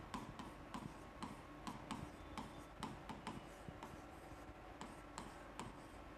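Chalk writing on a blackboard: faint short taps and scratches as letters are stroked out, about two clicks a second.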